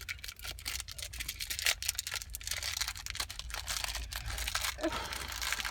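Crinkly plastic packaging rustling and crackling in irregular bursts as small hands pick and pull at a sealed wrapper, trying to tear it open.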